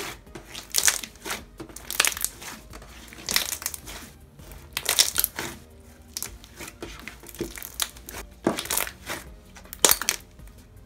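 Glittery slime being squeezed and kneaded by hand, giving about seven crackling squishes at irregular intervals, roughly one a second.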